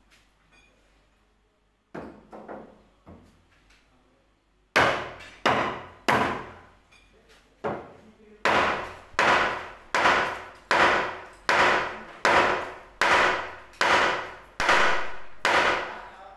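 Repeated hammer blows: a few light taps, then about fourteen sharp strikes at a steady pace of a little more than one a second, beginning about five seconds in.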